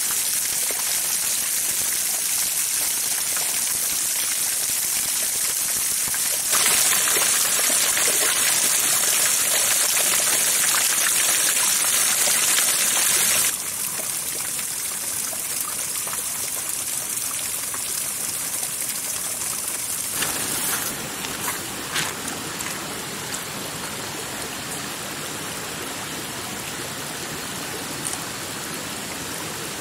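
Steady rushing water noise that changes abruptly in level and tone about 7, 13 and 20 seconds in, with a few light clicks around 21 to 22 seconds.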